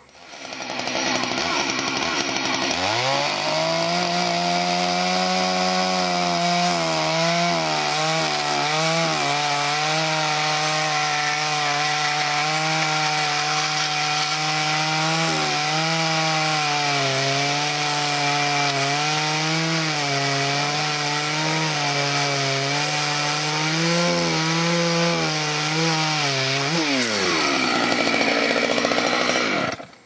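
Chainsaw revving up to full speed and cutting into wood, its pitch sagging briefly again and again under the load, then winding down near the end as the throttle is released.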